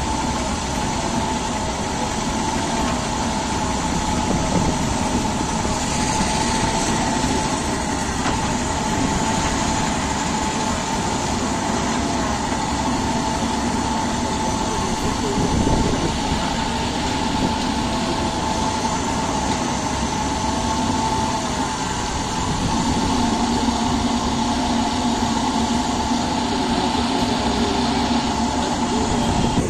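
Backhoe loader's diesel engine running steadily with a wavering whine while it works, one brief knock about halfway through.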